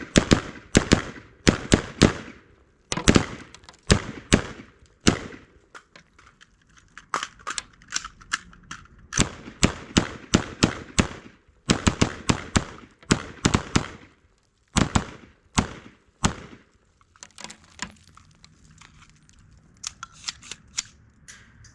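AR-15 rifle firing fast semi-automatic strings: sharp shots several a second, in runs broken by short pauses, with a few fainter shots near the end.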